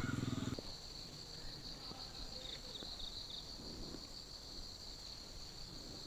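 Crickets chirring in a steady, faint, high-pitched drone. A short low-pitched sound cuts off about half a second in.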